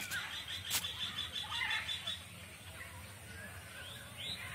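Birds chirping in the trees: a fast run of repeated high notes over the first two seconds, then scattered short chirps. A single sharp click comes just under a second in.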